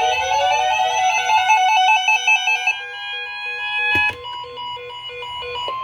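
Weather radio alarm: electronic tones warbling rapidly between two pitches, overlaid with other beeping alert tones, for about four seconds; then a click and a single steady high tone, the NOAA Weather Radio 1050 Hz warning alert tone that precedes a warning broadcast.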